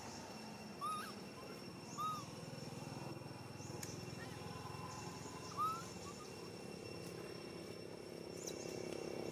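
Young macaque giving three short, high arched squeaks, the first two about a second apart and the third a few seconds later.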